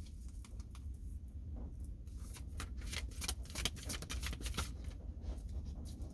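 A deck of tarot cards being shuffled by hand: a rapid run of quick, papery card clicks, sparse at first and thick from about two seconds in, over a steady low hum.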